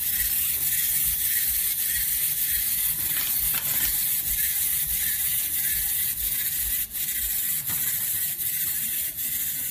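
Small motor and gears of toy windshield-wiper glasses running steadily, driving the little wipers back and forth, heard as a high hiss with faint ticks.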